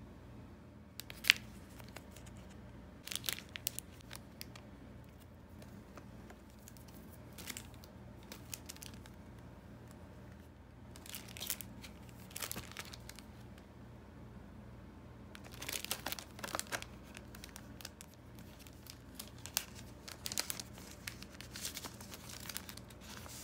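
Clear plastic packaging crinkling and rustling as masking-tape blister packs and sticker sheets in plastic sleeves are handled, in several short spells, with one sharp click about a second in.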